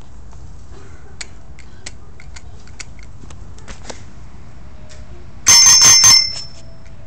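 A chrome thumb-lever bicycle bell, a cow-print novelty bell, is rung once about five and a half seconds in. It gives a quick run of rapid strikes that ring for under a second and then fade. Faint clicks from handling the handlebar come before it.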